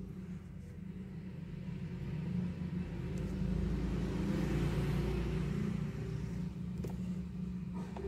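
Motor vehicle rumble that swells to a peak about halfway through and then eases off, with a couple of light clicks near the end.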